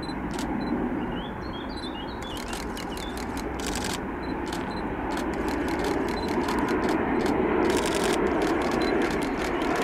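Boeing 737 jet airliner on final approach, its engines' rumble growing steadily louder as it comes in to land, with quick runs of sharp clicks over it.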